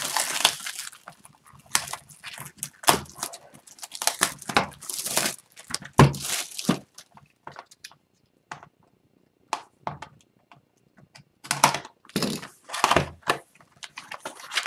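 Plastic wrap crackling as a utility knife slits it and it is pulled off a cardboard trading card box, in irregular bursts of crinkling and scraping with a short quiet spell about halfway. Near the end the cardboard lid is lifted open.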